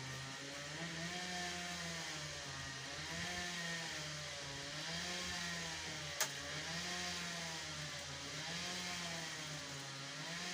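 A small engine or motor running steadily, its pitch wavering slowly up and down every couple of seconds, with one sharp click about six seconds in.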